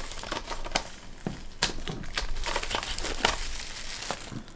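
Clear plastic shrink wrap being peeled off a DVD case and crumpled in the hand: an irregular run of sharp crinkling crackles.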